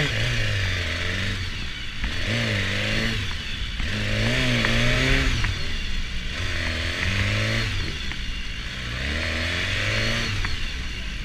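BMW S 1000 RR inline-four engine at low speed, its note swelling and easing about five times as the throttle is opened and closed.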